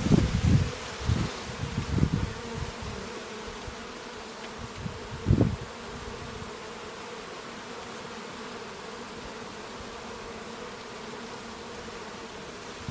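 Bees buzzing in a steady, continuous hum. Several short low rumbles come in the first couple of seconds, and one more about five seconds in.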